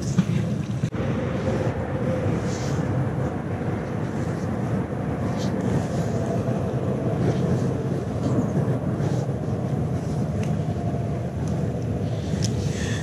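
Steady low outdoor rumble, with a short sharp splash-like noise about a second in as a thrown magnet lands in the river.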